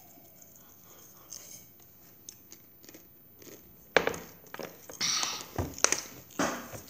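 Crunching and rustling of hot Doritos tortilla chips. After a quiet stretch, loud crackly crunches start about four seconds in, and a hand rummages among the chips in a metal bowl near the end.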